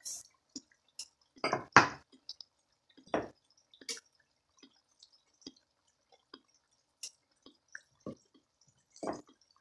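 Chicken cooking in oil in a stainless steel pot, its juices spitting in scattered, irregular pops and ticks; the loudest come about one and a half to two seconds in and again around three to four seconds.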